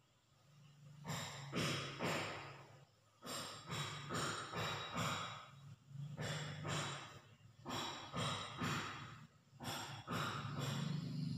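A sleeping person snoring deeply: a rapid, uneven run of short snores with a low buzzing pitch, starting about a second in.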